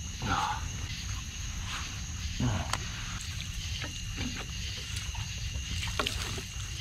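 Water splashing in a few short bursts as mud is rinsed off bare feet and legs, over a steady high chirring of night insects.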